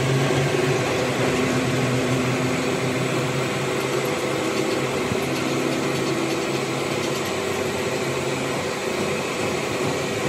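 Metal lathe running steadily as a threaded cutter spinning in the chuck cuts teeth into a brass worm gear, a constant machining hum and hiss.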